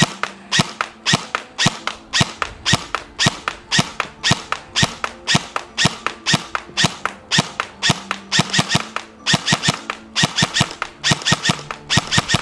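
Evolution Airsoft Reaper XS airsoft electric gun (V2 gearbox, E100 spring) firing on semi-automatic: a steady string of sharp shots, about two to three a second.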